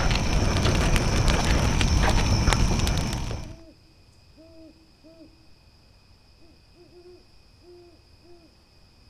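Campfire crackling and popping, loud and close, cutting off abruptly about three and a half seconds in. Then, in the quiet, an owl hooting: a run of short low hoots, several in quick pairs, over a faint steady high tone.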